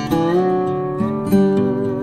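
Instrumental background music on acoustic guitar, with plucked notes changing about once a second.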